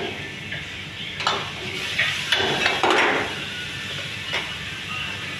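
Steel ladle knocking and scraping against a wok as veg Manchurian is stir-fried in sauce, several sharp clanks at uneven intervals, the strongest about three seconds in, over steady sizzling.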